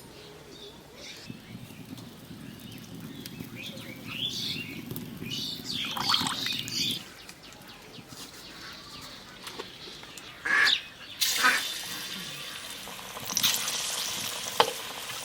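Hot oil sizzling as palm-fruit fritter batter goes into the pan, setting in loudly about eleven seconds in. Before that there are a few short bird calls.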